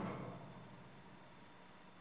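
A louder noise fades out within the first half second, leaving only faint room tone with a steady low hum.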